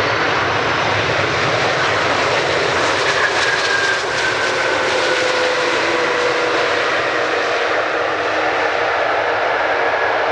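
Airbus A330 airliner's twin jet engines running loud and steady during the landing rollout on a wet runway, mixed with the rush of spray thrown up by the wheels. Two faint tones in the engine noise slowly fall in pitch.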